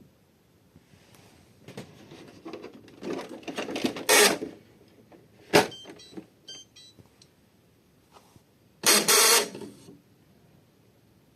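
HP 6122e inkjet printer's mechanism running in bursts: motor and gear whirring that builds over a couple of seconds, a sharp clack about halfway through, a run of short high chirps, then another loud whirring burst near the end.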